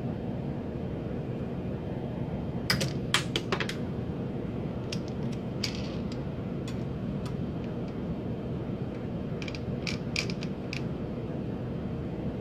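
Small pipe cutter being worked on a thin brass tube: sharp metallic clicks and taps, in a loud cluster about three seconds in, a few scattered ones after, and another cluster about ten seconds in, over a steady low hum.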